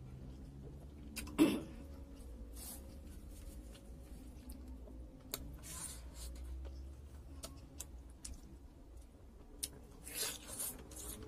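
Mouth sounds of eating by hand: chewing and wet lip smacks, with a loud smack about a second and a half in and a few more near the end, over a steady low hum.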